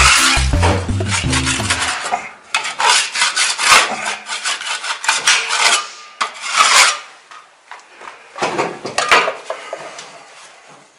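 Metal putty knife scraping wet gypsum plaster into a wall chase over electrical cable: a run of rasping strokes of blade on plaster, thinning out after about seven seconds.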